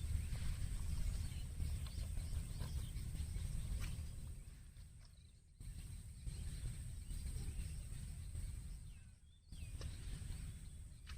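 Outdoor field ambience: a steady low rumble of wind on the microphone, a thin steady high-pitched hum, and faint scattered chirps. The sound drops away abruptly twice, about five and nine seconds in.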